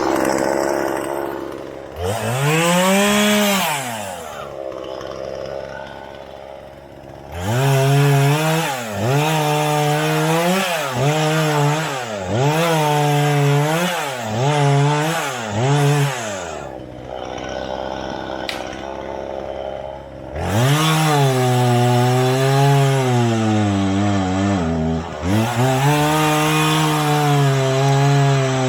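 Two-stroke chainsaw engine revved repeatedly. First one rev, then a run of quick throttle blips, a spell at low revs, then the throttle held high with the pitch wavering and dipping briefly near the end.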